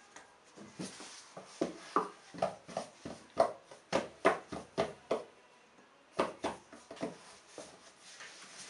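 Two kittens wrestling inside a cardboard box: a quick, irregular run of thumps and scratches as their paws and bodies hit the cardboard, with a short pause a little past halfway.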